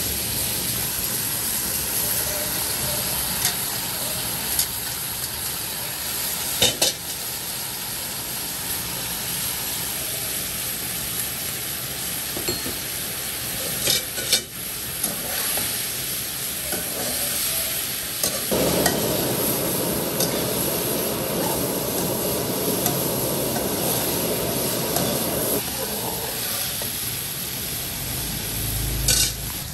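Stir-frying in a nonstick wok: sliced sea snail meat and water spinach sizzling while a spatula scrapes and tosses them. There are a few sharp knocks against the pan, and the sizzle grows fuller for several seconds past the middle.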